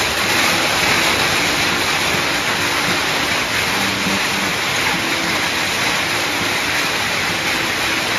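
Hailstorm: hail and heavy rain falling onto wet paving and a yard, a loud, steady, dense hiss of countless small impacts.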